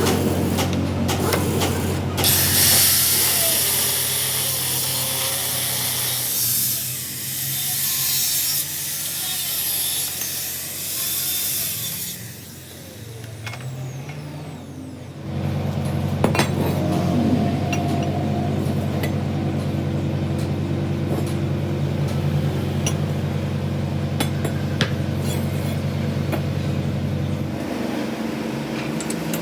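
Workshop machinery running with a steady hum, a loud hiss from about two to twelve seconds in, and scattered clicks and knocks later on.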